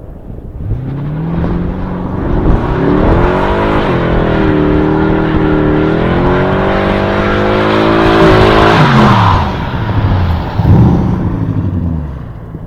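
A car engine at full throttle, pitch climbing with one upshift, then dropping steeply as the car passes at high speed. A short rev follows before the sound fades.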